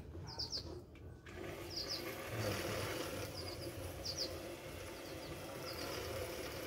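Singer 319W sewing machine running under power with its hand wheel declutched, driving the bobbin winder to fill a bobbin with thread; it starts about a second in and then runs steadily with a faint hum. Short bird chirps repeat over it.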